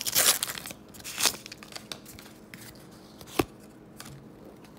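Paper wrapper of a 1989 Donruss baseball card pack being torn open and crinkled, loudest in the first second or so. Quieter handling follows, with a single sharp click about three and a half seconds in.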